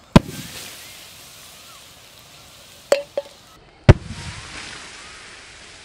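Explosive bangs of soda bottles buried under a fire bursting: one loud bang just after the start, two smaller cracks close together about three seconds in, and another loud bang about a second later.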